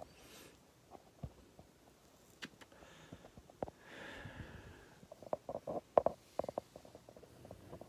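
Soft breathing close to the microphone, with scattered clicks and knocks from the phone being handled. There is a cluster of louder knocks about five to seven seconds in.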